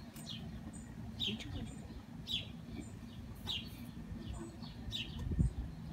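A small bird chirping repeatedly: short, sharp, falling chirps about one or two a second, over a low steady rumble, with a few low bumps about five seconds in.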